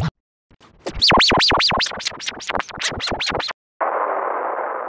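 Digitally warped clip of the J. Jonah Jameson laugh meme: rapid repeated laugh syllables, pitch-shifted high and swooping up and down about five times a second, sounding like record scratching. After a short break near the end, a harsh, muffled, noisy version begins.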